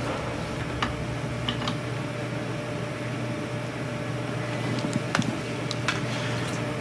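Room tone with a steady low electrical hum and a few faint clicks scattered through it.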